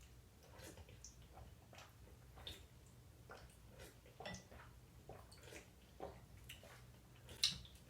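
Faint eating sounds: small spoons clicking against soup bowls and quiet mouth noises of eating soup, about two soft clicks a second, with a louder click near the end.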